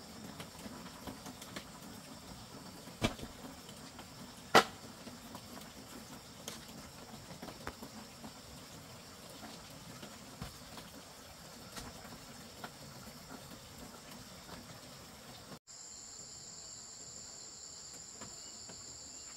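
Insects chirring steadily, with a few sharp knocks, the loudest about four and a half seconds in. Near the end the insect sound suddenly becomes louder and higher.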